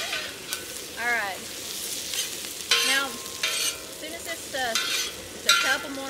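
Onions, jalapeños and cilantro sizzling in hot olive oil on a steel plow-disc cooker (discada), stirred with a metal spatula that scrapes and clanks against the disc several times, the steel ringing briefly after some strokes.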